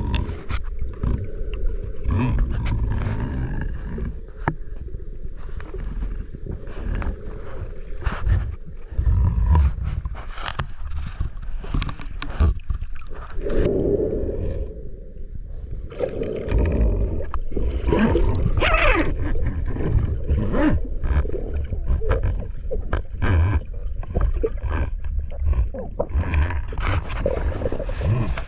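Muffled underwater rumble from a camera submerged in lake water, with frequent small clicks and knocks and bubbling as the freediver breathes out and kicks with a monofin.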